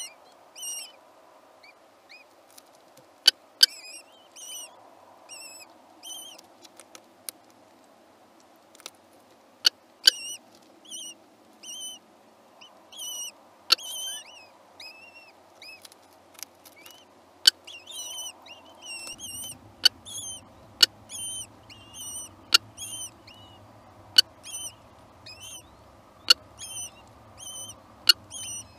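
Newly hatched Eurasian kestrel chicks cheeping in quick runs of high, thin begging calls while the female feeds them. Loud, sharp clicks come here and there among the calls, and a faint low hum comes in about two-thirds of the way through.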